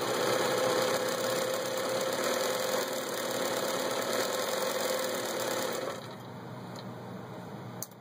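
Bernina Record 830 electric sewing machine running steadily as it stitches one of its built-in patterns, stopping about six seconds in. A couple of sharp clicks follow near the end.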